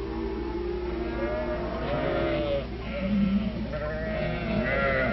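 Sheep bleating in several overlapping calls, over a steady low hum.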